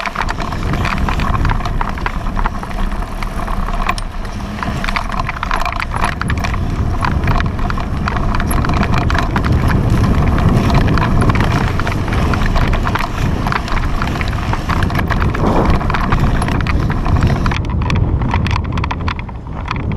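Off-road bicycle ridden over a bumpy grass and dirt course, heard from a handlebar-mounted camera: a constant irregular clatter of rattles and knocks from the bike and mount over a heavy rumble of wind and tyre noise.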